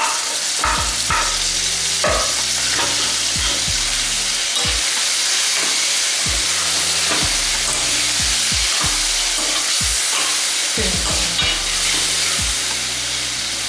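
Chopped tomatoes sizzling in hot oil in a metal kadai, freshly added to fried onions and ginger-garlic paste. A metal spoon repeatedly scrapes and clicks against the pan as they are stirred.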